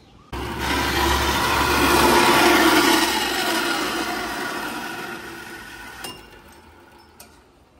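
Horizontal metal-cutting bandsaw starting with a sudden onset and its blade cutting through aluminium intercooler charge-pipe tubing, with a steady motor hum under the cutting noise. It is loudest two to three seconds in, then gradually dies away.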